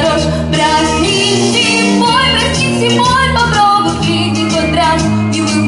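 A girl singing a Russian pop song into a microphone over a recorded backing track with a steady bass line and light percussion.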